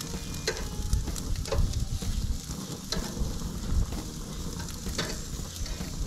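Potato wedges sizzling on a hot grill grate, with a few sharp metal clicks as stainless steel tongs turn them one by one.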